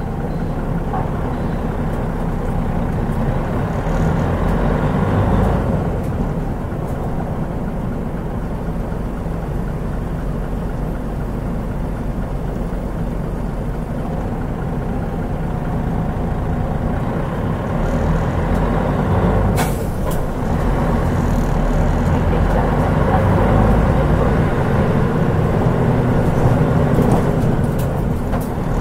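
Mitsubishi Fuso Aerostar city bus's 6M70 turbocharged straight-six diesel heard from inside while under way, its low drone swelling as it pulls harder and easing off again. A short sharp hiss cuts in about two-thirds of the way through.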